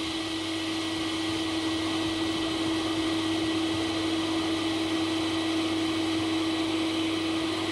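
Electric air blower running steadily, pushing a jet of air out of a hand-held hose, with a steady droning tone over the rush of air.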